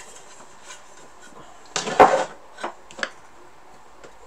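A Royal FP typewriter's sheet-metal body panel set down on the workbench with a clatter about two seconds in, followed by a few small clicks of typewriter parts being handled.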